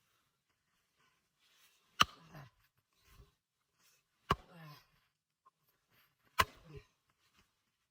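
Three sharp strikes of a tool on wood, about two seconds apart, each followed by a short, softer tail.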